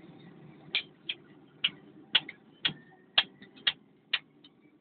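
Sharp metallic clicks, about two a second, from a hand tool working at the fittings of a Cat 950F loader's diesel injection pump during its removal.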